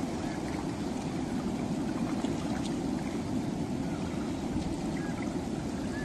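Ocean surf washing steadily onto a beach, with a few faint bird chirps near the end.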